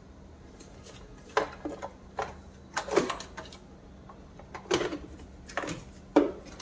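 Hard plastic clacks and knocks, about eight in irregular succession, as the black plastic motor housing of a Kärcher WD6 Premium wet-and-dry vacuum is handled and seated into place by hand.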